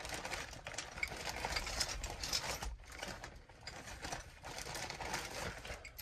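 Small metal chainsaw parts rattling and clinking together as a hand rummages through a bag of them, with rustling, a fast run of small clicks and a couple of brief pauses.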